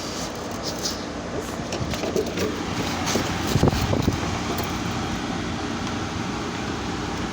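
Frigidaire and Honeywell portable dehumidifiers running together: a steady fan rush over a low compressor hum. A few light clicks and knocks come around the middle.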